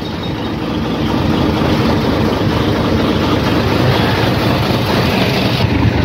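A truck engine running steadily, a low hum under a constant wash of noise.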